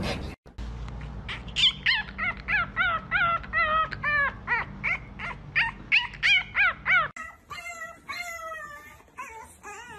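A French bulldog puppy giving a rapid string of short, high yipping howls, about three a second. About seven seconds in, a second puppy takes over with quieter, longer, wavering howls.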